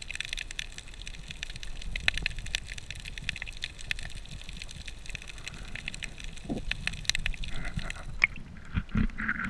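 Underwater reef sound picked up by a submerged camera: a dense crackle of sharp clicks over a low water rumble. About eight seconds in, the high crackle drops away.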